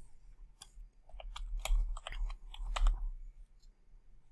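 Typing on a computer keyboard: a short run of irregular key clicks as a word is typed, stopping about three seconds in.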